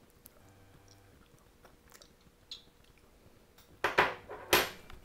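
Faint room tone, then two short, loud rustling noises about half a second apart near the end: camera handling noise as the camera is moved close against the face and hair.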